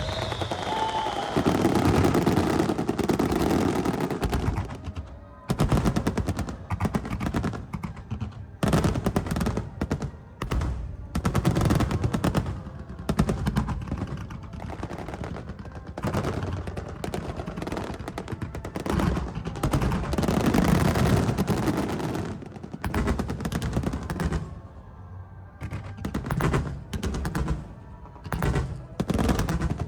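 Aerial fireworks bursting in a rapid barrage, bangs following one another in quick succession with a few brief lulls.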